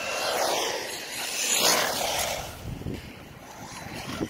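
Radio-controlled cars racing past at speed: a motor whine and tyre rush that swells to its loudest a little under two seconds in, then fades.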